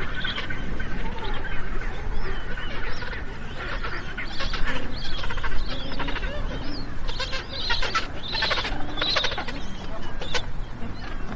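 Magellanic penguins calling, a string of harsh, rapidly pulsed calls that come thickest in the middle, over a steady low rumble.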